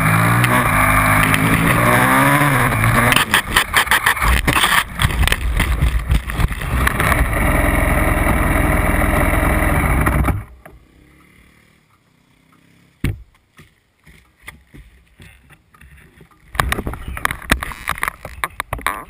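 Supermotard motorcycle engine running with rising and falling revs, turning into rough clattering and repeated knocks as the bike crashes off the track into the vegetation. The engine sound cuts off abruptly about ten seconds in, leaving quiet with one sharp knock, then rustling and clicking near the end.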